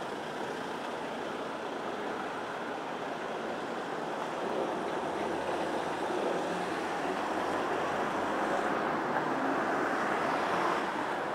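Steady rushing noise of street traffic, with no distinct engine note or footsteps standing out, growing somewhat louder over the second half.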